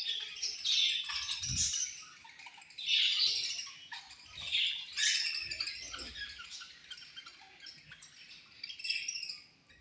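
Several budgerigars chirping and chattering in repeated bursts, with a short low thump about one and a half seconds in.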